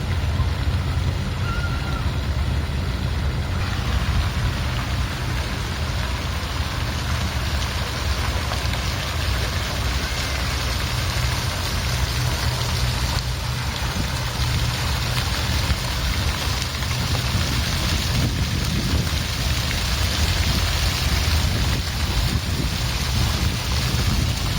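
Water fountain splashing and pouring steadily, with a steady low rumble underneath.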